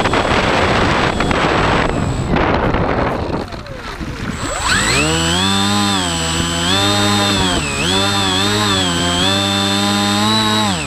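Water and air rushing past an RC seaplane's hull as it slides across a pond. About four seconds in, its pusher propeller motor comes up to speed and runs with the throttle rising and falling as it taxis, a buzzing tone with a thin high whine over it.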